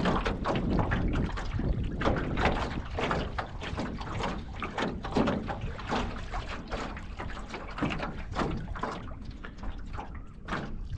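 Water splashing and slapping irregularly against the aluminum hull of a Grumman Eagle 15 sailing canoe under way, over a steady low wind rumble on the microphone.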